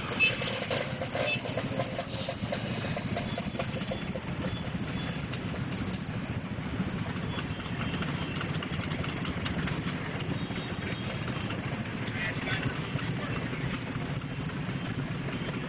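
Many motor scooter engines idling and running together in a steady, dense drone.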